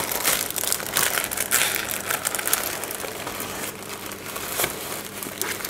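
Rustling and crinkling of a diamond painting canvas and its protective sheet being rolled up by hand, with many small crackles.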